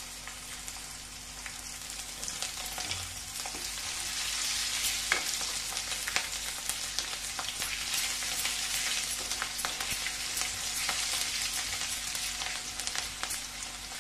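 Green chillies sizzling in hot oil with ginger-garlic paste in a steel kadhai, stirred with a wooden spatula, with many small ticks and scrapes over the sizzle. The sizzle grows louder a few seconds in.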